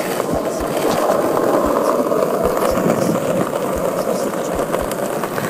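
Skateboard wheels rolling over brick paving: a steady, loud rumble with short low knocks every half second or so.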